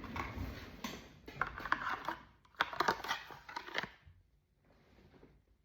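Holster packaging being opened and handled: crinkling, rustling and tearing with small clicks, stopping about four seconds in.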